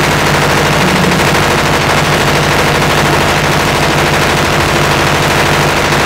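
Diesel engine of a concrete mixer with concrete pump running steadily at close range, a fast, even clatter.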